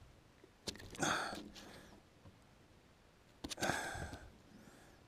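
Two short scuffling, slapping bursts, each starting with a click: a freshly landed smallmouth bass thrashing while being held.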